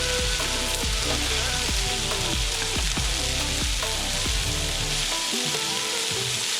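Food sizzling as it fries in a hot pan, a steady hiss, under background music with a beat. The music's bass drops out about five seconds in.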